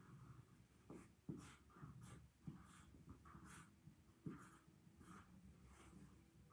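Faint felt-tip marker strokes on a drawing surface, coming irregularly about every half second, with a couple of light knocks.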